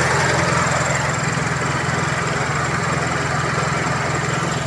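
Toyota 2E four-cylinder engine idling steadily, heard close up in the open engine bay, with an even pulse and a steady rushing noise over it.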